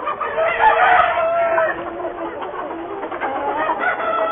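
A flock of chickens clucking and calling over one another, with a drawn-out rooster crow loudest about a second in.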